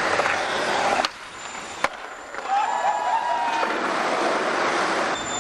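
Skateboard wheels rolling over paving stones, cutting off abruptly about a second in, with one sharp clack near two seconds before the rolling picks up again.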